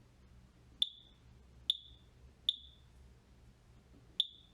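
Four short, high-pitched beeps from the Macurco DVP-120 control panel's keypad as its buttons are pressed, the last after a longer pause.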